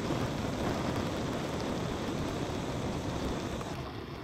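Handheld gas blowtorch flame burning with a steady rushing hiss while it heats the end of a steel lead screw; the sound eases a little near the end.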